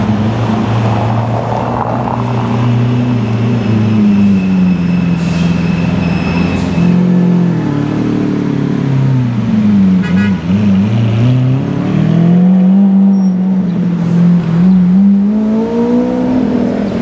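Lamborghini Aventador's V12 engine running at low revs while the car rolls slowly, its pitch dipping and rising a few times in the middle and toward the end as the throttle is eased off and blipped.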